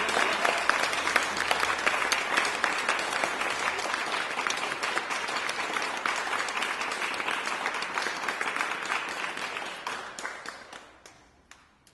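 Audience applause: many hands clapping steadily, thinning out and fading away over the last two seconds.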